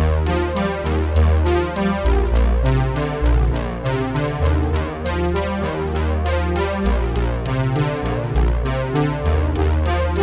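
Electronic background music with a steady drum-machine beat, synthesizer chords and a bass line.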